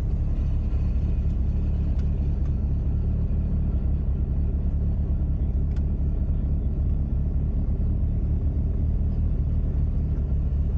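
Car driving at a steady pace: an even, low rumble of road and engine noise with no rise or fall in revs.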